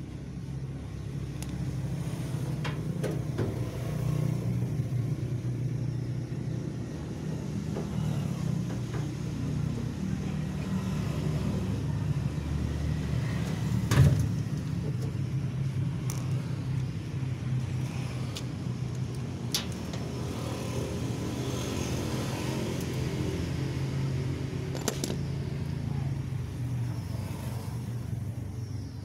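A steady low mechanical rumble, engine- or traffic-like, with scattered light clicks of metal tool work and one sharp knock about halfway through.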